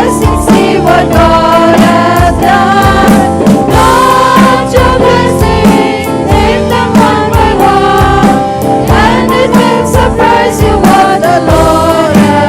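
Gospel song: several voices singing together over a band with a steady drum beat.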